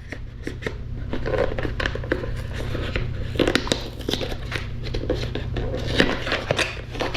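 A small product box being handled and opened by hand: irregular clicks, taps and crinkles of cardboard and plastic packaging, over a steady low hum.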